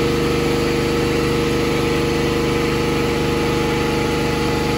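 A motor running steadily: an even mechanical hum with a light pulse about six times a second.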